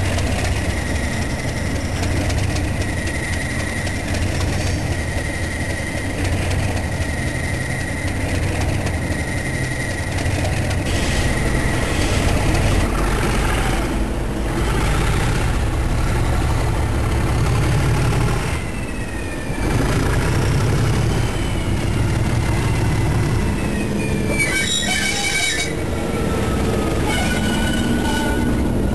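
Class 37 diesel locomotives' English Electric V12 engines running, a deep steady rumble as one passes and others stand in the station. A steady high whine sounds for roughly the first twelve seconds, and several whines falling in pitch come later.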